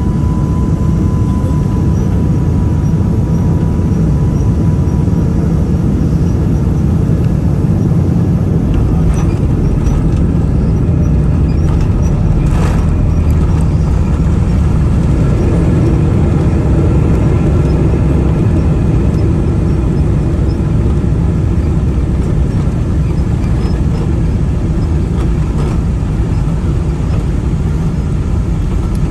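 Steady, loud low rumble of a Boeing 777-300 airliner on the ground after landing. A faint high tone fades out over the first few seconds, and there is a single short click about twelve seconds in.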